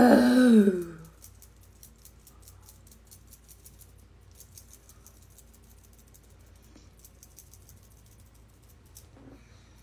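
A short voice sound falling in pitch at the start, then faint, quick, light taps of a makeup applicator being dabbed onto the face.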